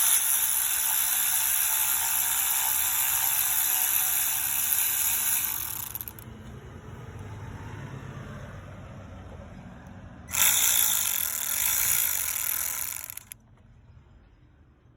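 Ratchet wrench clicking as it turns out the 10mm bolts holding the throttle body, in a long run of about six seconds, then a second run of about three seconds after a quieter pause.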